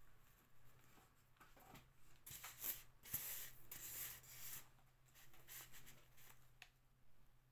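Faint rustling and a few light clicks of hands handling fabric flowers and a hot glue gun, loudest from about two to four and a half seconds in.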